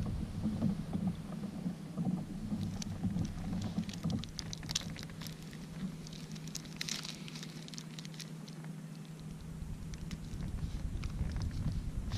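Water pattering and splashing lightly against a kayak, with many small sharp ticks through the middle, over a low rumble of wind on the microphone.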